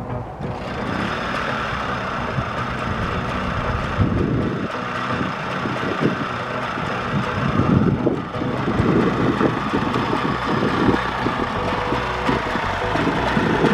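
1969 Mobylette EEG moped's 49cc two-stroke engine being pedal-started, catching about half a second in and then idling steadily on its stand. An uneven low rumble comes and goes under it from about four seconds in.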